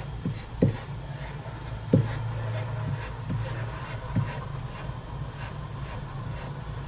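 A Siberian husky puppy's claws clicking and scrabbling on a slippery floor as it runs in place, straining against its leash. A few dull thumps fall among the clicks, over a steady low hum.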